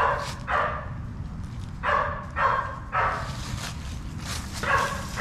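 Dogs barking, a string of about eight short barks, some coming in quick pairs.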